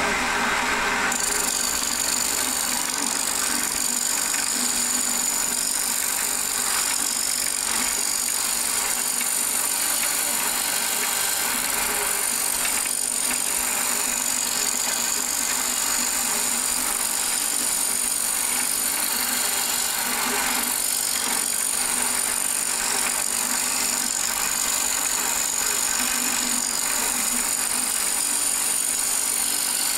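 Wood lathe running while a turning tool cuts into the spinning wooden bowl blank, a steady cutting hiss as the blank is trued round; a brighter, higher cutting sound sets in about a second in.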